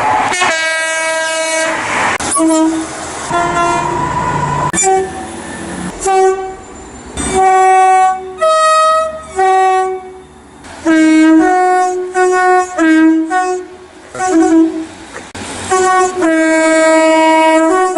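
A run of British train horns from several different trains, cut one after another: two-tone horns sounding short blasts that switch between a higher and a lower note, with a longer horn near the end.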